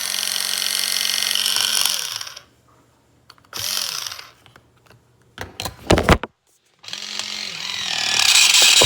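Tornado F4 battery-powered can opener's motor running with a harsh screech from its defective gear, failing to cut the can. It stops about two seconds in, runs again briefly, gives a few sharp knocks around six seconds, then starts up again and screeches louder near the end.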